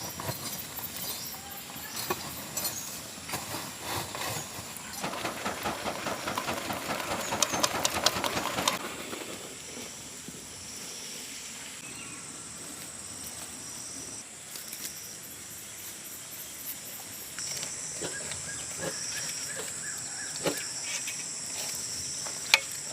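Burning embers scraped and clattered with a metal tool, loudest for a few seconds near the start. After that, steady high insect chirring with a faint hiss.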